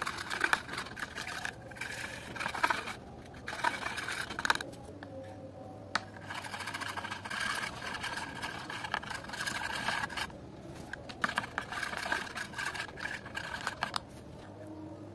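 Metal palette knife scraping and squelching through thick wet paint against a plastic palette, in stretches of small clicks and smears broken by a few short pauses.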